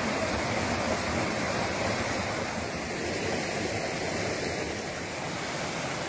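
Shallow rocky creek rushing steadily over boulders and small cascades.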